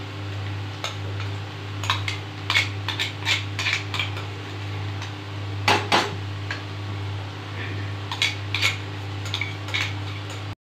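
A steel spoon clinking and scraping against a steel mixer-grinder jar and tapping on the kadhai while garlic and chilli paste is spooned out. The clinks come in scattered clusters, loudest as a pair about six seconds in, over a steady low hum.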